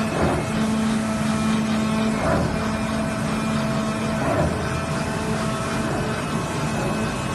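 CNC cloth-cutting machine running: a steady mechanical hum with a low steady tone, swelling briefly about every two seconds as the cutting head moves.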